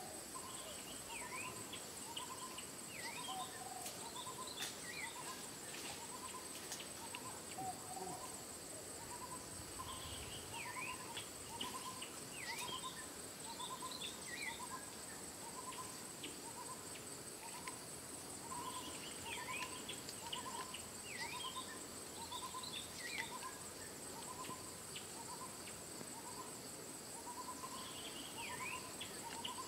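Woodland bird and insect chorus: a bird repeats a short hooting note about three times every two seconds, other birds give scattered quick downward-swept chirps, and insects keep up a steady high buzz.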